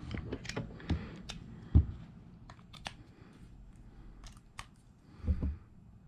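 Plastic clicks and knocks of USB charger bricks and a USB adapter being handled and pulled apart, with one louder knock a little under two seconds in.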